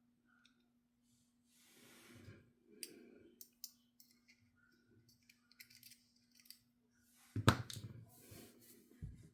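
Small plastic and metal RC axle parts and tools being handled: scattered light clicks and ticks, a soft breath, and one sharper, louder knock about three-quarters of the way through. A faint steady hum runs underneath.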